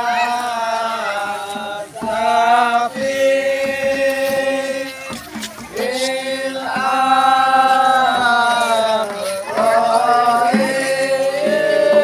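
A group of men in a rebana frame-drum troupe chanting together in unison, in long drawn-out phrases with short breaks between them.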